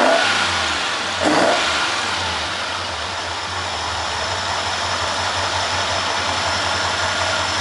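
Alfa Romeo Montreal's 2.6-litre V8, running with its intake trumpets exposed. It swells briefly twice near the start, then settles to a steady idle with an even beat.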